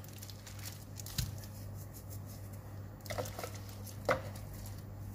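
Plastic-gloved hand handling and rubbing seasoning into raw fish fillets in a glass Pyrex dish: soft wet squishing, with a couple of sharper clicks about three and four seconds in. A steady low hum runs underneath.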